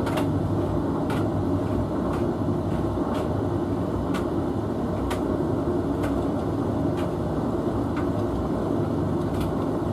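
Hotpoint Futura HF8B593G washing machine tumbling a load on its main wash: a steady motor and drum hum with a light click about once a second.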